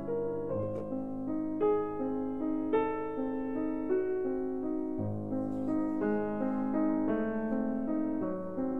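Background piano music: a slow melody of sustained single notes and chords.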